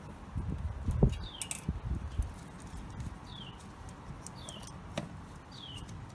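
Wires and ring terminals being handled at a winch solenoid's posts: rustling and knocks in the first couple of seconds, with a sharp click about a second in and a lighter one near five seconds. Over it, a bird repeats a short, high falling chirp about once a second.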